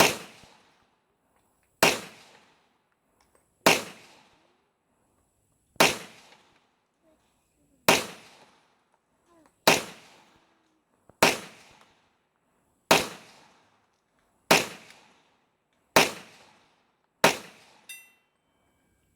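Glock 24 Gen 3 .40 S&W pistol firing 180 grain Federal rounds: about a dozen single shots, deliberately paced one every 1.5 to 2 seconds, each a sharp crack with a short echoing tail.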